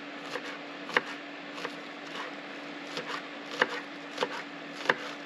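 Kitchen knife dicing spring onions on a wooden chopping board: about eight sharp knocks, unevenly spaced, over a steady low hum.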